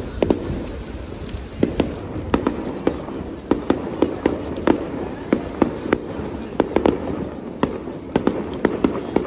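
Fireworks going off: an irregular string of sharp bangs and pops, several a second.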